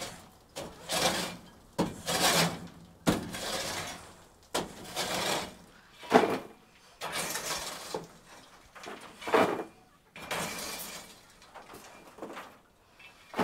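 Flat shovel scraping dried chicken droppings and feathers across a metal-mesh coop floor and tipping them into a plastic tub: a dozen or so gritty scrapes and pours, one every second or so.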